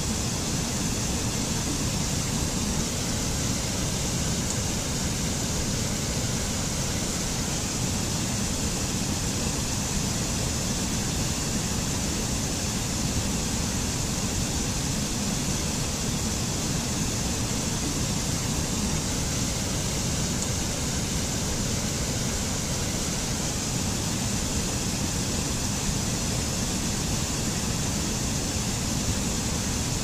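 A rocky stream cascading over boulders in small falls: a steady, even rush of water.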